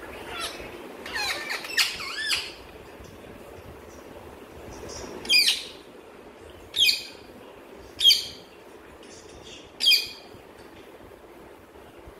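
Indian ringneck parakeets calling: a quick run of short calls with wavering pitch in the first couple of seconds, then four loud, sharp squawks a second or two apart, each dropping in pitch.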